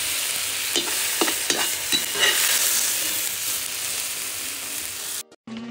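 Onions and tomatoes sizzling in hot oil in a pan, with a utensil clicking against the pan a few times between about one and two seconds in as the vegetables are stirred and scooped out. Near the end the sizzle cuts off abruptly and guitar music starts.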